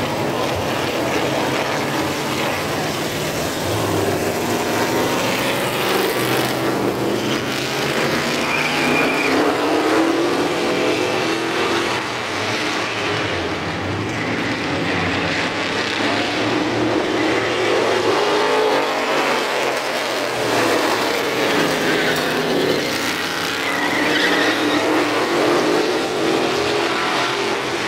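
A field of street stock race cars running on an oval track, several V8 engines overlapping, their pitch rising and falling as the cars accelerate and ease off.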